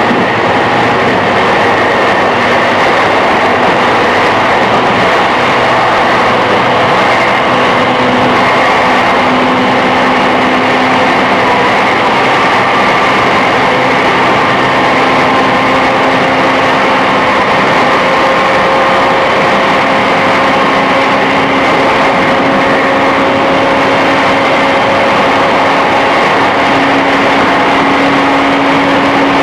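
JR East E531-series EMU heard from inside a car on the move, with a steady running rumble. Several motor and gear whine tones climb slowly in pitch as the train gathers speed.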